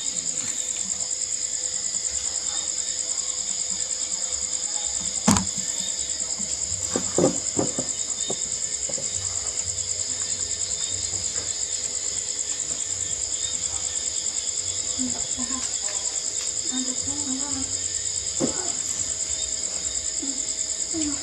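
Crickets chirring in a steady, high, continuous trill. A few scattered clicks and knocks stand out, the sharpest about five seconds in.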